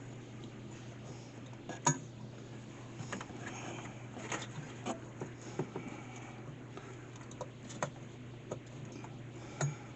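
Scattered light clicks and clinks of small parts being handled and fitted by hand, a few a second at most, over a steady low hum.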